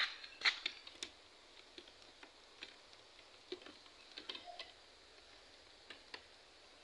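Faint, scattered clicks and light taps at irregular moments, like handling noise, the two strongest at the very start and about half a second in.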